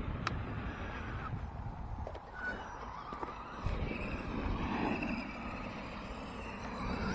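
Radio-controlled trucks driving on a dirt track. A faint motor whine rises and falls with the throttle over a low rumble, with a sharp click shortly after the start.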